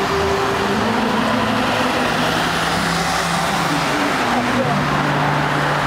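Steady road traffic noise as a car and then a van drive past close by on a city street, with engine hum.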